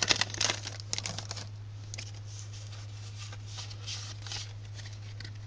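Foil wrapper of a Pokémon trading card booster pack crinkling and tearing as it is opened, the busy rustling dying down after about a second and a half to a few faint rustles. A steady low hum runs underneath.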